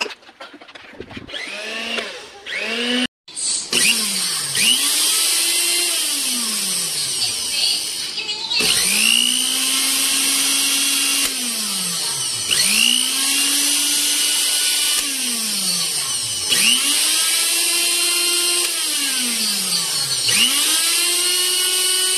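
Motor of a CASSIUS 300 W blender running with no jug fitted, switched on and off over and over: each time it whines up to speed, runs steadily for two or three seconds, then winds down with falling pitch. This repeats about every four seconds, after a few shorter bursts near the start.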